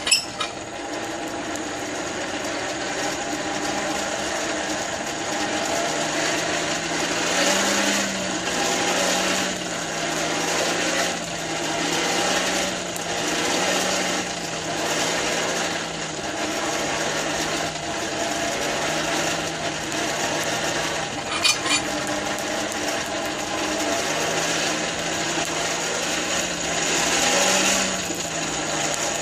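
Champion 400 hand-cranked forge blower whirring as it is cranked, forcing air into a freshly lit coal forge fire to get the tinder burning. Its low hum rises and falls about once a second with the cranking, with a few brief clicks.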